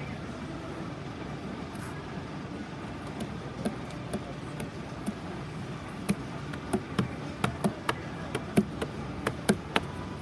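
Steady background noise with a run of irregular sharp knocks and clicks starting a few seconds in and coming thicker in the second half.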